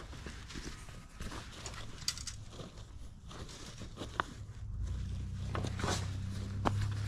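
Fabric baseball caps being picked up and handled, with soft rustles and scattered small clicks. A low steady hum comes in about halfway through.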